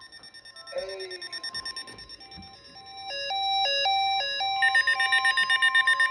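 Weather-radio alert tones: a short run of electronic beeps jumping between pitches, then about halfway through a steady alert tone near 1 kHz begins under a fast, evenly pulsing beep, signalling a severe thunderstorm warning.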